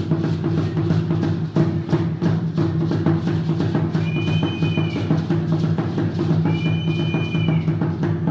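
Drumming for an Aztec-style dance: a steady, dense drumbeat. Twice, near the middle, a held high whistling tone sounds over it.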